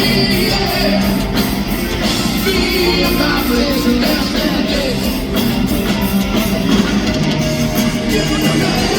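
A live rock band playing loud, with electric guitar, a steady drumbeat and singing.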